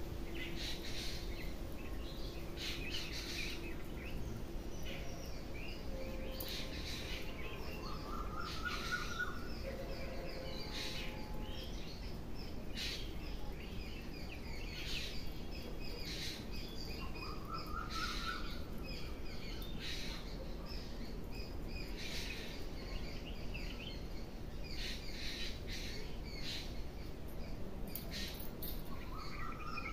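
Birds calling: one repeats a short rising call three times, roughly eight to nine seconds apart, over many short, sharp chirps.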